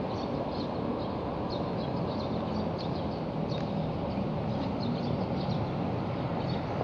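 Steady outdoor background noise, a low rumble like distant traffic, with faint short high chirps scattered through it.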